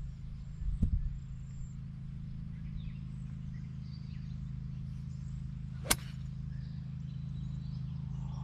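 A golf club striking a Bridgestone e12 Contact golf ball once from the fairway: a single sharp click about six seconds in, over a steady low rumble.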